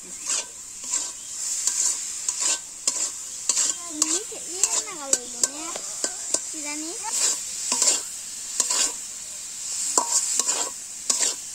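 Metal spatula scraping and stirring mango pieces in a metal karai, in repeated strokes about one and a half a second, over a steady sizzle of the spiced mango frying in oil for pickle.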